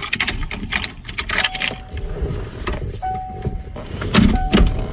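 Plastic clicks and knocks of steering-column trim pieces being handled, with a steady electronic beep repeating about every second and a half.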